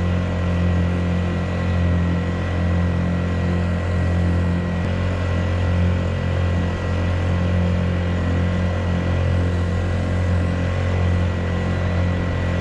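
Honda GX50 50cc air-cooled four-stroke outboard running at a steady part-throttle cruise, a constant drone pushing the kayak along at about four miles an hour.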